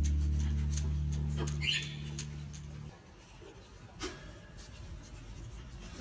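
A guitar chord rings out and fades away over the first three seconds. After it, faint scratching and small clicks come from a rosy-faced lovebird's beak working at its wooden perch.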